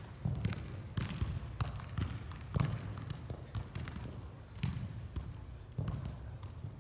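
A regular-size soccer ball being juggled, struck again and again by foot and thigh to keep it in the air: irregular dull taps, about one or two a second.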